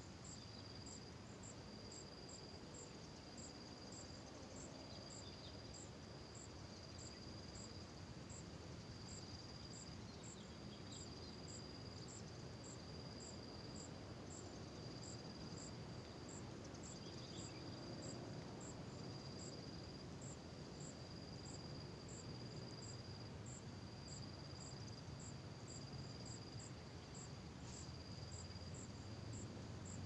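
Insects chirring: a high, steady trill in long repeated phrases broken by short pauses, with a fainter, higher ticking keeping an even beat alongside.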